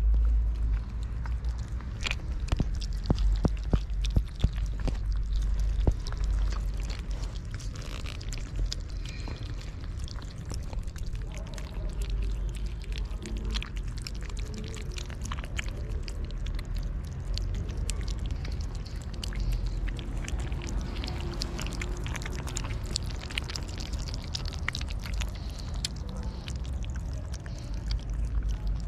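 Kittens eating wet cat food from a plate: wet chewing and smacking with many quick clicks, over a steady low rumble.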